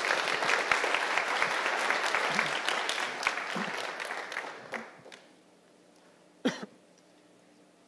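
Audience applauding at the end of a talk, the clapping dying away about five seconds in. A single short sharp sound about a second and a half later.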